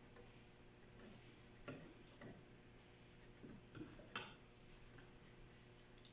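Faint scattered clicks and light knocks of parts being handled, the sharpest about four seconds in, over low room tone.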